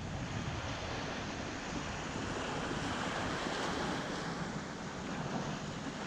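Small sea waves breaking and washing up a sandy beach in a steady surf wash, with wind buffeting the microphone underneath.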